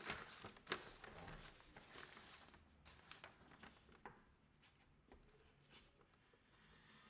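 Faint scratching of a pastel stick being drawn across smooth paper, with a few light taps in the first second or so.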